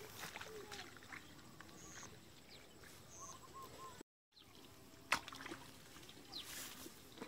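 Faint rural outdoor ambience: footsteps swishing through tall wet grass and mud, with a few short bird chirps. A sharp click comes about five seconds in.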